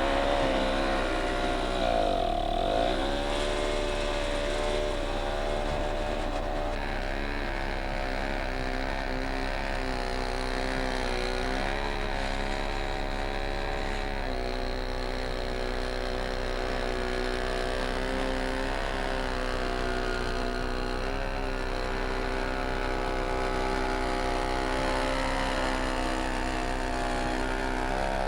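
A small snowblower's engine running steadily under load, its pitch sagging and recovering about two seconds in and shifting again about halfway through. The blower is working at its limit, throwing snow straight up over a high snow mound.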